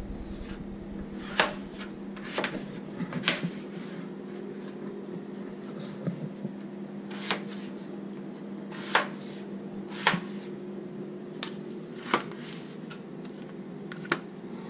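Chef's knife chopping through peeled potatoes onto a plastic cutting board: sharp single knocks every second or two, irregularly spaced, over a steady low hum.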